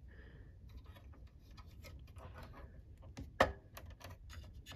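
Light clicks and taps of metal and plastic as a PCIe Wi-Fi card's bracket and the computer case's card-retention latch are handled, with one sharper click about three and a half seconds in.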